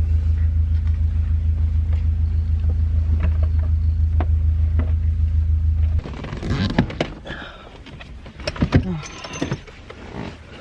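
A steady low hum for about six seconds, then, after a cut, short screechy pulls, rustling and clicks, as of duct tape being unrolled and torn.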